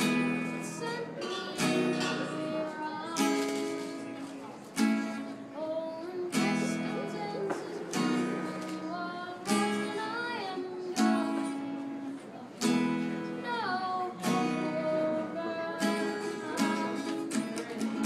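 A boy sings while strumming chords on an acoustic guitar, with a strong strum roughly every one and a half seconds and lighter strums in between.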